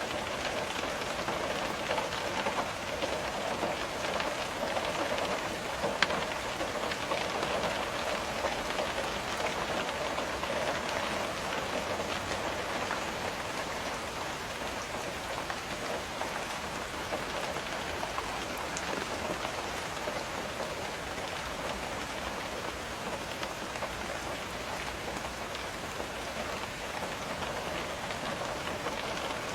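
Steady rain pattering on a window, a dense even hiss of drops with one sharper tap about six seconds in.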